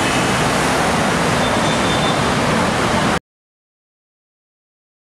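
Steady city traffic noise, the engines and tyres of buses, jeepneys, cars and motorcycles at a busy intersection, that cuts off abruptly about three seconds in, leaving dead silence.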